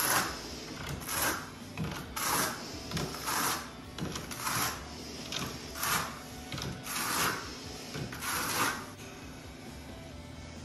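Steel notched trowel scraping across wet tile mortar on the floor in repeated strokes, about one a second, combing the mortar into ridges before a porcelain panel is laid.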